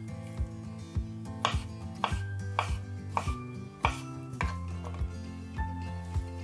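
Kitchen knife chopping vegetable pieces on a wooden cutting board: separate, slightly irregular strokes, about one to two a second, with one sharper knock near the middle.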